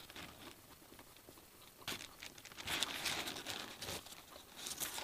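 Paper wrapper around a sandwich wrap crinkling and rustling as it is handled, in soft, scattered crackles with a longer rustle about three seconds in.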